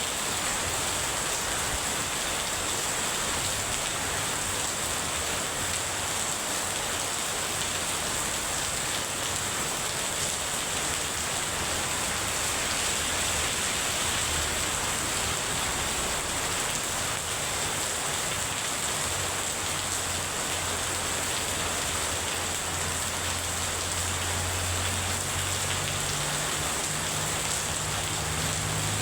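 Heavy rain pouring steadily, an even hiss with no let-up. A low hum comes in under the rain in the second half and grows stronger near the end.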